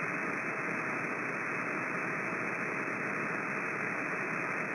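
Steady static hiss from a CB radio receiver between transmissions, with no voice on the channel.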